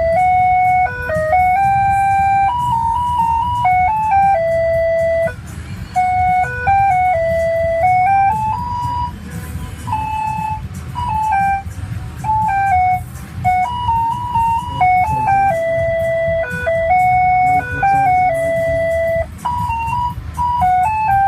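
Electronic chime tune, one clear note at a time, that repeats about midway through. Under it runs a steady low engine rumble.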